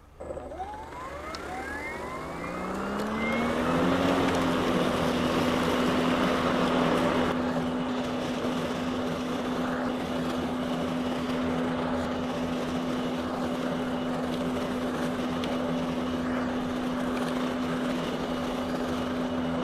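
Ryobi 40V HP Whisper Series mower's brushless motor and blade spinning up, a whine rising in pitch over about four seconds, then running at a steady hum while cutting grass.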